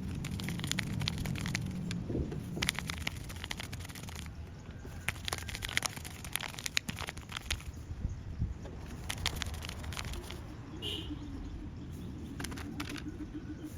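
Paper and plastic crinkling as a paper squishy is handled and squeezed: an irregular run of sharp crackles over a low background rumble.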